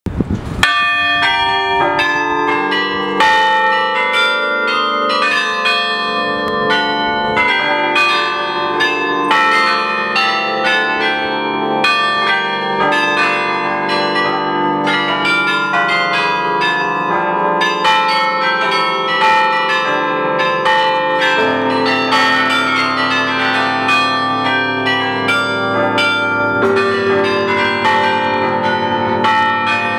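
Carillon bells of the Belfry of Bruges playing a tune, heard up close in the bell chamber: many bronze bells struck in quick succession, their tones ringing over one another. A deep low bell joins about two-thirds of the way through and keeps ringing under the tune.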